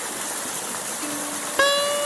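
Valley stream flowing with a steady rush of water. A fainter low tone about a second in is followed by a clear held tone with overtones, starting suddenly about one and a half seconds in.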